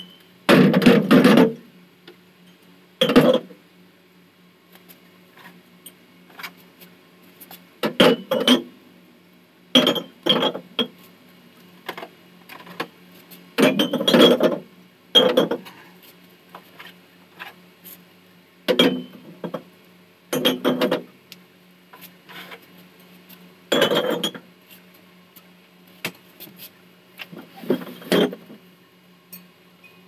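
Glass beer bottles clinking and knocking against each other and the plastic crisper drawer as they are laid into a refrigerator, in irregular bursts every few seconds over a faint steady low hum.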